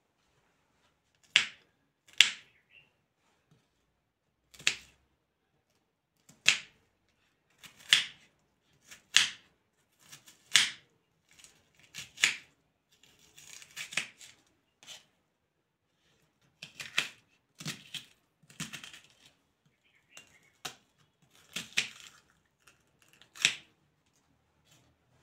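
Kitchen knife slicing through a red onion on a wooden cutting board: crisp single cuts coming irregularly, about one every second or two, with a few quicker clusters of crackly cuts and onion layers being pulled apart.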